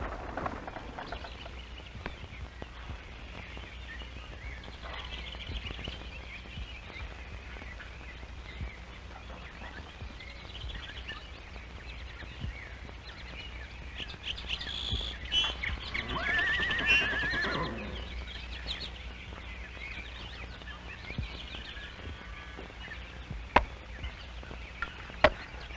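A horse whinnies, a wavering call of about two seconds midway, with a few shorter calls just before it, over a steady low hum. Two sharp knocks come near the end.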